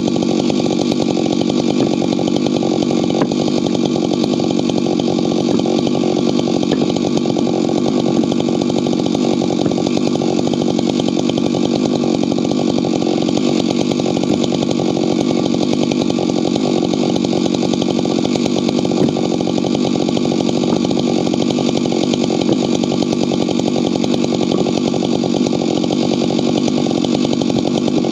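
Husqvarna two-stroke chainsaw running steadily at high revs without a break, bucking firewood.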